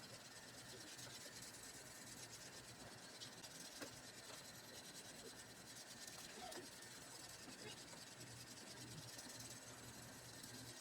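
Faint, steady rubbing and scraping of the Shun Sora chef's knife edge being worked during edge and chip repair, with a few light ticks.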